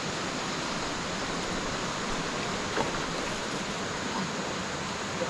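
Steady rushing of river water, an even hiss with no rhythm, with one faint tick about three seconds in.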